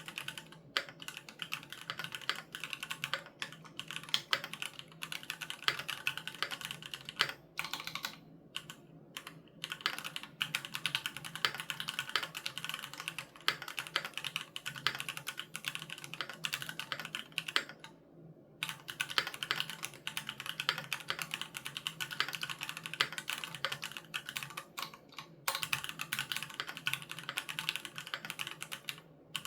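Steady, fast typing on a Keychron Q3 Knob mechanical keyboard with Gateron G Pro Red linear switches, a dense run of keystrokes broken by a couple of short pauses, about a third of the way in and again near two-thirds through.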